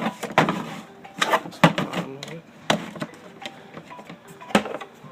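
Hand tools and metal parts clattering and knocking together as they are rummaged through and handled, in a string of irregular sharp clacks.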